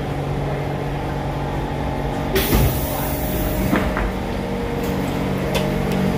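SMRT C651 train's passenger doors sliding open with a sudden sharp hiss of air a little over two seconds in, followed by a knock or two as they finish opening, over the steady hum of the stopped train.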